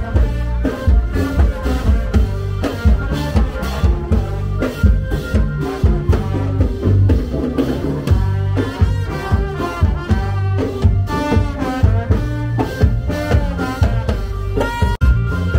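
Brass-and-drum procession band playing a lively tune: trumpets over a steady drum-kit beat.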